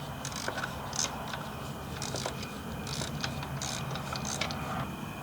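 Hand ratchet on a 16 mm spark plug socket clicking in short, irregular runs as a spark plug is worked loose.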